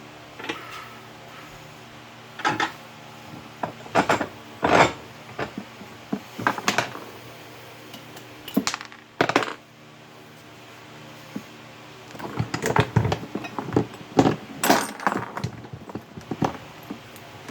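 Irregular metallic clinks and knocks of small metal tools and parts being handled and set down, coming thicker near the end.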